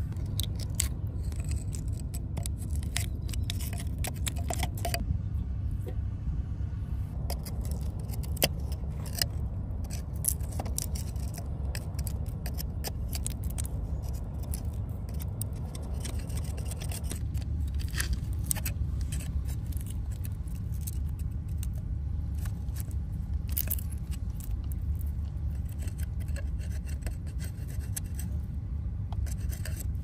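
Metal oyster pick scraping, tapping and clicking against oyster shells on a rock as the oysters are pried open, with a steady low rumble underneath.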